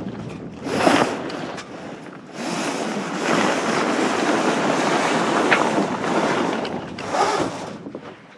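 Wind buffeting the microphone over sea water rushing past a sailboat under way, in noisy surges that build and fade, the longest lasting several seconds from a couple of seconds in.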